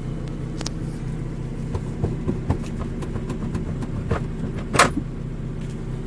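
Honda steering wheel being rocked by hand and worked off its steering shaft after the centre nut has been removed: scattered clicks and knocks of the wheel hub shifting, the loudest near five seconds in, over a steady low hum.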